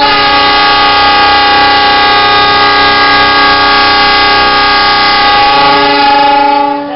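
Air horn of a CC206 diesel-electric locomotive sounding one long, loud blast of several notes together as a chord, fading away near the end. It is the departure signal as the train sets off.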